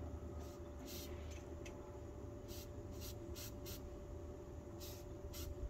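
Short, faint hisses of a Flex Seal liquid rubber aerosol can, sprayed in about ten brief bursts, each a fraction of a second long, from a spray-can adapter worked by a pull cord on a telescopic pole. A low steady rumble lies underneath.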